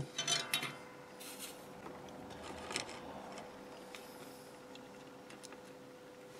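Small handling noises of a circuit board and solder wire being moved about by hand on a wooden bench: a few light clicks and rustles, loudest in the first second and again near the middle, then a few faint ticks, over a faint steady hum.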